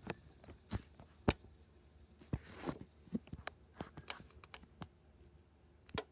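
A scattered series of light clicks and taps at irregular spacing, with no steady running noise underneath.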